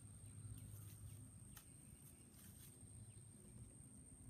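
Near silence: faint outdoor background with a steady low hum, a thin steady high tone and a few faint ticks.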